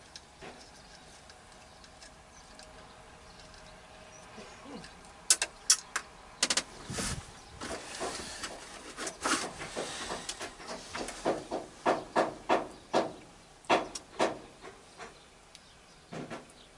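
Hand tools working a small nut on a truck's steering-column turn-signal switch: a run of sharp clicks and knocks starting about five seconds in, settling for a while into about two a second, then stopping before the end.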